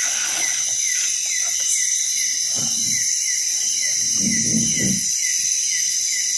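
Night chorus of tropical forest insects: a steady high-pitched buzz, with a short falling chirp repeating about twice a second. Occasional low rustling from movement about the boat comes through underneath.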